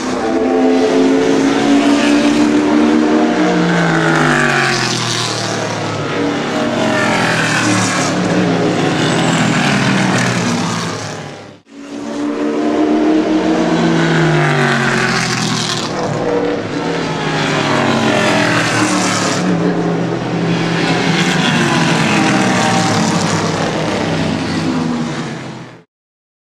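Vintage race cars passing at racing speed, several engines at high revs with their notes sliding up and down in pitch as they go by. The sound drops out for a moment near the middle and cuts off suddenly just before the end.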